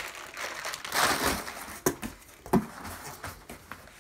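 Plastic bubble wrap crinkling and rustling as it is handled, loudest about a second in, with two sharp clicks a little after the middle.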